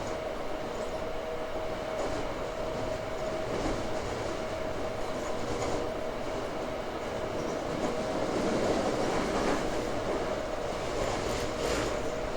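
Toei 5300 series subway car with Mitsubishi GTO-VVVF traction equipment running at a steady speed, heard from inside the car. Continuous rail and running noise carries two steady held tones, swells slightly about two-thirds of the way through, and has a few clicks near the end.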